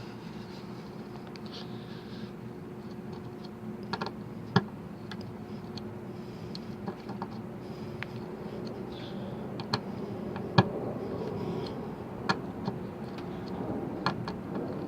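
Kershaw Select Fire multitool being handled while its crosshead bit is put to use: scattered sharp clicks and clacks of metal and plastic parts, over a steady low hum.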